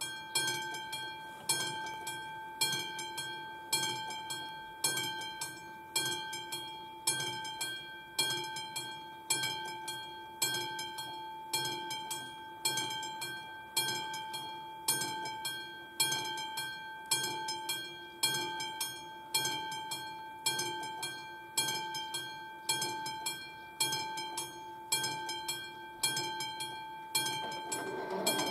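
Level-crossing warning bell ringing, starting at once as the crossing activates: a strong strike about once a second, each trailed by quicker fainter strikes, over a ringing tone. A low rumble builds near the end.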